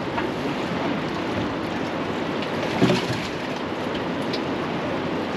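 Steady rushing noise of choppy river water lapping and splashing against a fishing boat's hull, with wind; a single louder thump about three seconds in.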